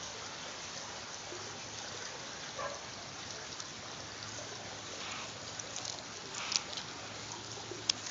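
Low, steady sound of running water trickling, with a few light rustles and clicks of foliage brushing against the camera in the second half.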